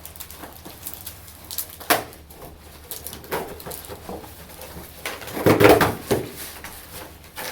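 Unboxing noises: a cardboard carton and its packing being handled and pulled apart, with scattered knocks and rustles. A sharp knock about two seconds in, and a louder, longer scraping burst about five and a half seconds in.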